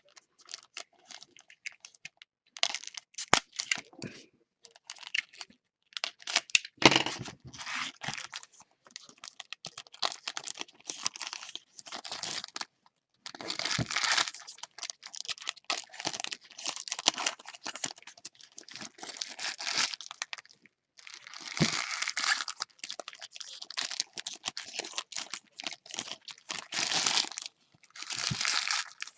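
Trading-card packaging being opened by hand: plastic wrapper crinkling and tearing in irregular bursts of rustling.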